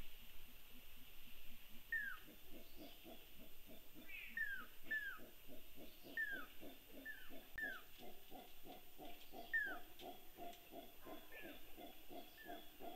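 Howler monkeys calling faintly in reaction to an earthquake's shaking: a rhythmic run of deep grunting roars, about four a second, that starts about two seconds in. Over it, a bird gives short whistles that fall in pitch, again and again, against a steady insect hum.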